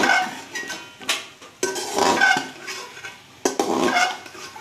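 Slotted metal spatula scraping and knocking against a metal cooking pot while vegetables are stir-fried. There are a few sudden loud strokes, each leaving the pot ringing briefly.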